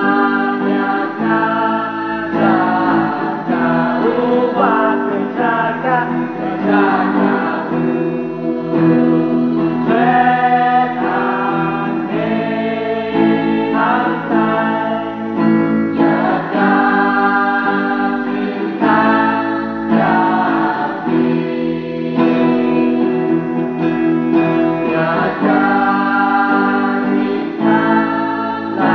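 A small mixed choir of young women and a man singing a Khasi-language hymn together, accompanied by a strummed electric guitar over steady sustained chords.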